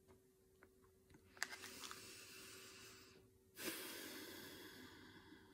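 A slow, deep breath: a long inhale starting about a second and a half in, then a louder exhale that starts suddenly just past the middle and fades away. A few faint clicks come before it.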